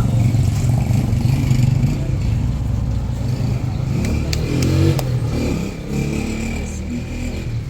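A vehicle engine running steadily with a low hum, with three short sharp clicks about four to five seconds in.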